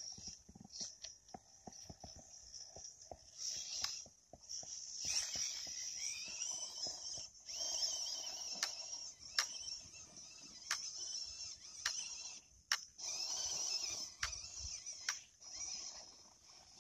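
Stock electric motor and gears of an MN99S 1:12 RC crawler whining in on-and-off bursts as it is driven through mud, the pitch rising and falling with the throttle, with scattered sharp clicks.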